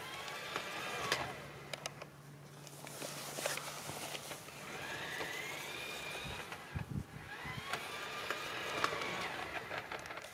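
Electric motor of an LGB garden-railway locomotive whining under load as it pushes a snowplow through snow, its pitch rising and easing several times, with scattered clicks and a few low thuds about two thirds of the way in.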